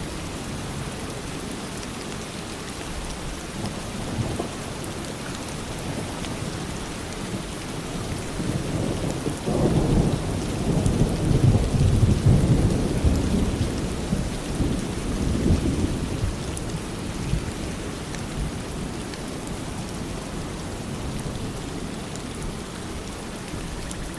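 Steady rain falling, with a low roll of thunder that swells in about a third of the way through, rumbles for several seconds and fades away.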